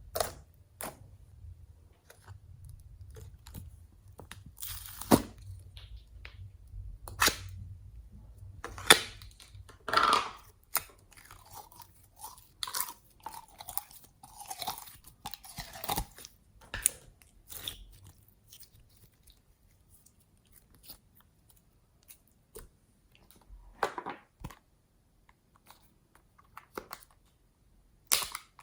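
Glossy slime mixed with floam beads being kneaded and pressed by hand, giving irregular crunches, crackles and pops, busier in the first half and sparser later.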